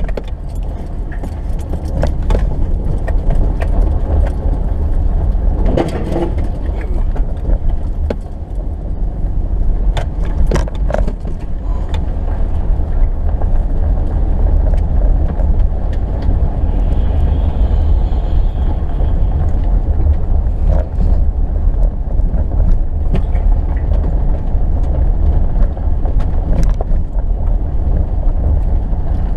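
2018 Subaru Forester driving slowly over a snowy, uneven field: a steady low rumble of the moving car, with scattered sharp knocks and rattles as it goes over bumps.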